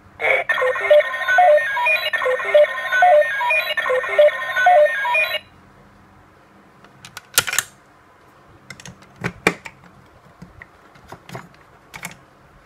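A DX Ixa Belt toy's speaker plays an electronic sound effect of quick beeping, chiming notes over a buzzy tone, which cuts off suddenly about five seconds in. Then come several sharp plastic clicks as the toy is handled.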